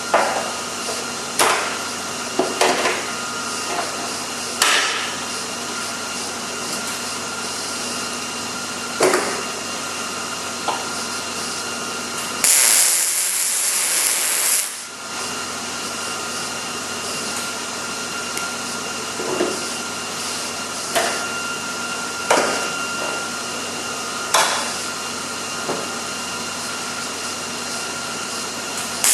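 Miller 211 MIG welder running a weld: a steady hiss with sharp crackling pops every second or so. There is a louder, brighter hiss for about two seconds halfway through.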